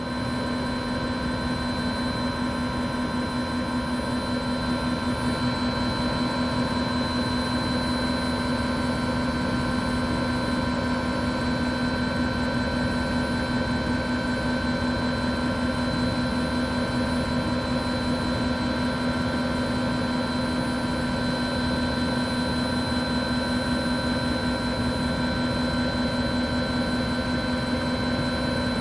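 Helicopter engine and rotor noise heard from aboard the aircraft: a steady, unchanging drone with several held whining tones, some high-pitched.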